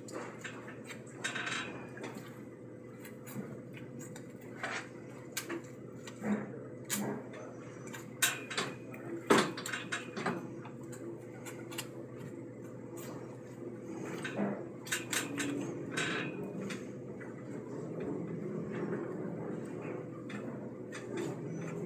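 Irregular clicks, knocks and light scrapes of a steel butcher's knife and meat hook working a beef round on a cutting board, the sharpest knock about nine seconds in, over a steady low hum.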